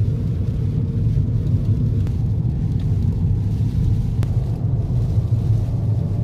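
Steady low rumble of a car driving on a wet road, heard from inside the cabin: engine and tyre noise with no change in pace.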